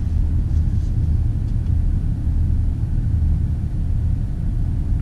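Low, steady rumble of a BMW X5 xDrive50i rolling slowly along the road, heard from inside the cabin.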